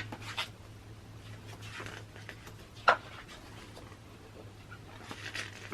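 Glossy magazine pages being handled and turned: soft paper rustles and light ticks, with one sharp snap about three seconds in, over a steady low hum.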